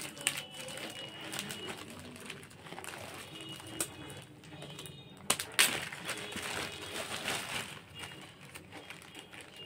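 Clear plastic bags crinkling and rustling as they are handled and pulled from a cardboard parcel, with a couple of louder crackles about five and a half seconds in. Faint short high-pitched chirps sound a few times in the background.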